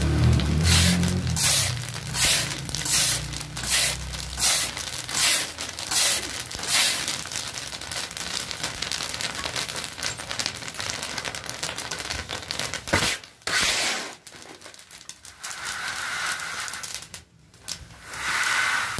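Black chickpeas being stirred through hot roasting sand in a large kadhai with a long metal paddle. Each stroke is a rasping rush, at about four strokes every three seconds, over a low hum that stops about four seconds in. The strokes give way to a steady scraping hiss that dies down about two-thirds of the way through.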